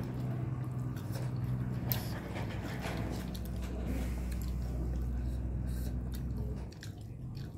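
Two people chewing and smacking their lips while eating vegetable momos, with small clicks of mouths and fingers. A steady low hum runs underneath and partly drops away near the end.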